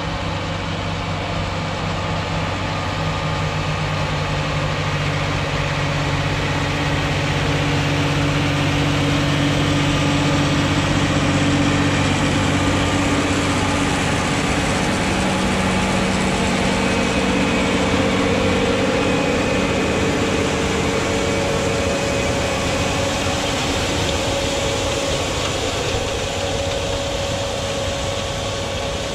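John Deere 8345RT tracked tractor's diesel engine running steadily while pulling a power-harrow seed drill through the field. It grows louder as the tractor approaches, is loudest as it passes about 12 seconds in, then eases off as it moves away.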